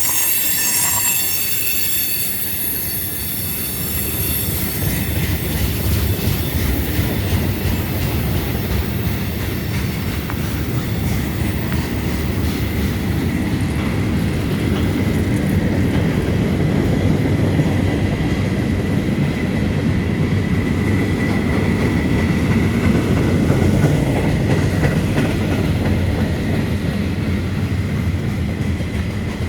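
Freight train rolling past on the rails: a steady rumble of steel wheels over the track, with high-pitched wheel squeal in the first few seconds that fades away and a faint thin squeal lingering underneath.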